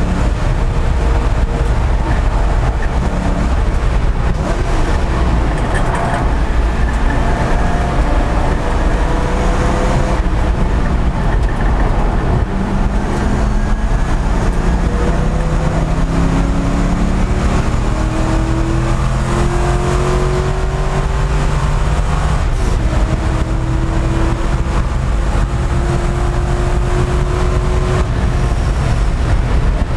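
Race car engine heard from inside the caged cockpit on a hot lap, its pitch dropping under braking and climbing again several times as the car accelerates out of corners, over a constant rumble of road and wind noise.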